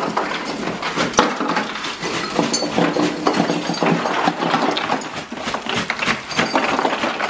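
Ice cubes clattering and rattling as a bag of ice is emptied into a cooler over bottled drinks, with the plastic bag crinkling: a dense, steady rattle of many sharp clicks.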